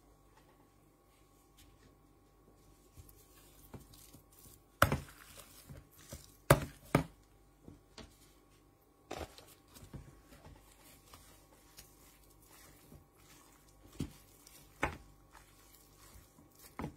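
Scattered knocks and taps of gloved hands and a spoon on a plastic cutting board and plastic food tub during spring-roll prep, with three sharp, louder knocks between about five and seven seconds in.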